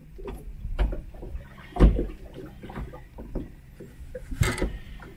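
Irregular knocks and thumps as a freshly caught small zander is handled and flaps in a PVC inflatable boat. The loudest thud comes about two seconds in and another comes near the end.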